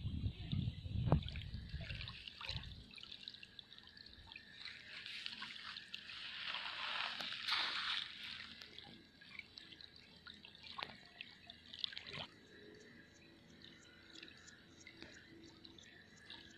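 Faint small waves lapping and trickling at the sandy edge of a reservoir, swelling for a few seconds midway and then fading. A low rumble comes in the first few seconds, and a few sharp clicks come through.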